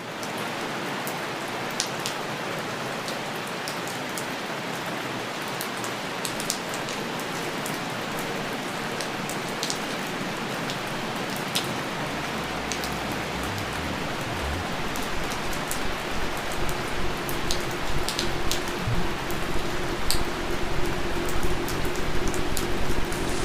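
Steady rain falling, with scattered close drops ticking sharply. In the second half a low rumble comes in under the rain, and a faint held note joins near the end.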